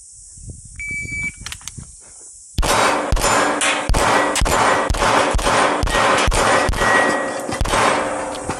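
A shot timer beeps once, briefly, about a second in. From about two and a half seconds a handgun fires rapidly, about two to three shots a second, and the falling-steel targets clang and ring as they are hit.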